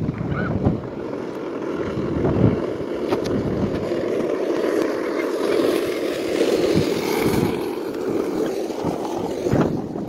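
Skateboard wheels rolling over asphalt: a steady, gritty rumble with a few small knocks.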